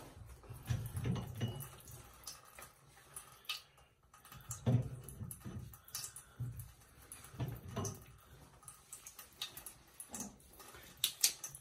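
Delta shower valve cartridge being twisted and pulled out of the valve by hand: irregular plastic clicks and scrapes with a few dull knocks. Near the end, water trickles from the opened valve.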